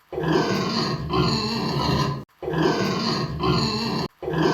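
Domestic pig grunting, the same short recording played over and over, starting again about every two seconds.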